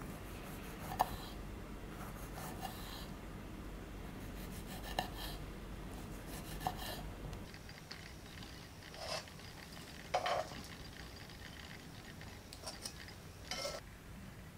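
Knife slicing strawberries on a wooden cutting board, a few soft taps of the blade on the board. From about halfway, a couple of clatters and knocks as French toast is tipped from a pan onto a wooden plate, then light taps near the end.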